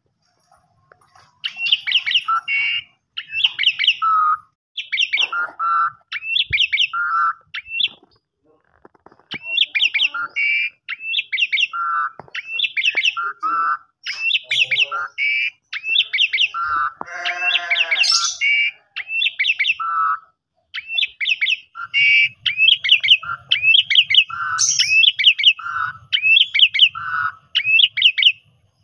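Javan pied starling (jalak suren) singing its 'kopi-kopiko' song: bursts of short repeated notes, high notes alternating with lower ones, broken by brief pauses. A lower, rougher call comes about 17 seconds in.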